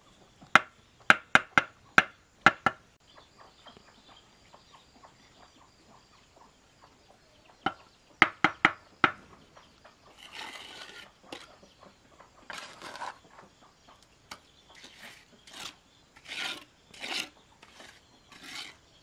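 A mason's trowel knocking a hollow concrete block down into fresh mortar: a quick run of sharp taps in the first few seconds and another run about eight seconds in. After that comes softer, uneven scraping of the trowel working wet mortar.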